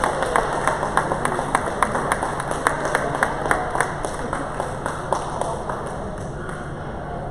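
Scattered hand clapping from a small crowd of spectators, several claps a second, thinning out and dying away about five to six seconds in, over a steady low background hum.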